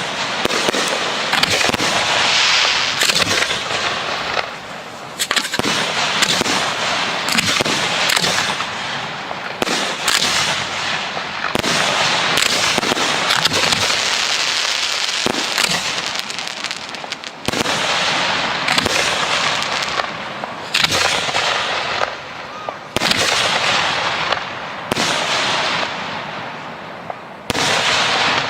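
Professional fireworks display with shells bursting in rapid succession, a near-continuous run of bangs and dense crackling, with fresh loud volleys several times.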